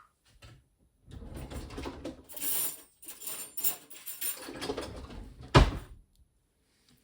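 Household handling sounds: several seconds of scraping and rustling, ending in one sharp knock about five and a half seconds in.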